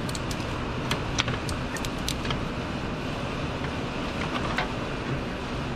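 Light clicks and taps of the AC compressor's refrigerant hoses and their metal fittings being handled and pushed aside by hand, clustered in the first couple of seconds and again near the end. They sit over a steady background hiss.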